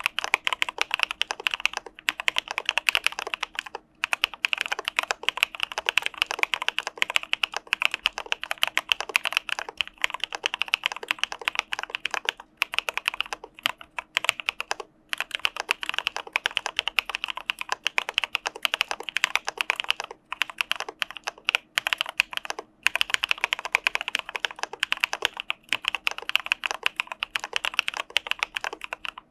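Fast typing on an Arisu Alice-layout mechanical keyboard fitted with Cà Phê Sữa Đá (CPSD) linear switches: a dense stream of key clacks broken by a few brief pauses.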